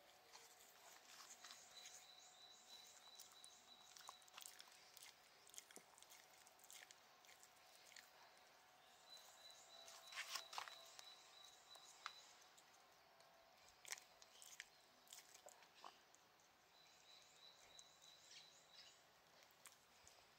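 Faint scratching and clicking of a toothbrush against a Shiba Inu's teeth, with the dog chewing and biting on the brush; the loudest clicks come about halfway through. A faint high steady tone comes and goes three times behind it.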